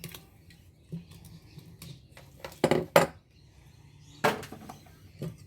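Metal clanking: several separate sharp knocks and clanks of a steel light ballast and hand tools being handled on a workbench, the loudest about three and four seconds in.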